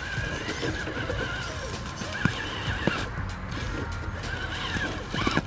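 Brushed electric motor and gear drivetrain of a 1/10-scale RC crawler truck whining under load, its pitch wavering up and down as the throttle works the truck through grass and over rocks. A couple of sharp knocks come from the chassis and tyres striking rocks or sticks.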